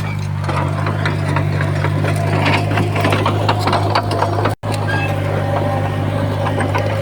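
Heavy diesel earthmoving machine running steadily, with frequent clanks and rattles over the engine drone. The sound drops out for an instant about four and a half seconds in.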